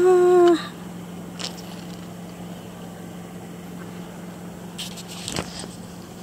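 A person's brief held vocal sound at the very start, then a steady low hum with a few faint clicks and rustles.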